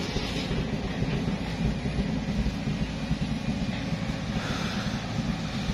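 A vehicle engine running with a steady, uneven low rumble.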